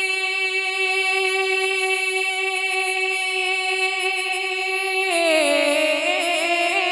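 A voice singing an Urdu naat, holding one long steady note for about five seconds, then gliding down in pitch with a wavering ornament.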